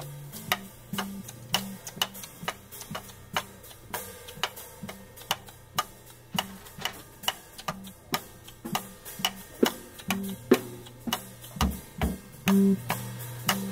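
Small jazz group playing quietly: drum kit ticking out a steady pulse of about three light clicks a second over a repeating low plucked guitar figure, with a few louder drum strikes near the end.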